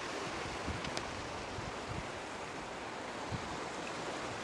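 Steady wash of wind and surf, with a faint click about a second in.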